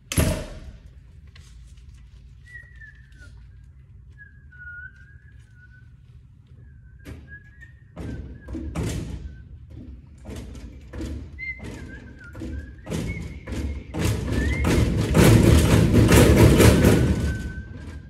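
A door thuds shut, then someone whistles a wavering tune. Thumps and knocks on a glass-front snack vending machine start about eight seconds in and build to a fast, loud rattle of the machine near the end.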